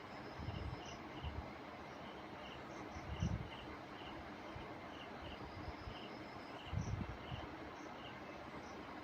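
Insect chirping, short high chirps repeating about twice a second, with a few soft low thumps, the strongest about three seconds in.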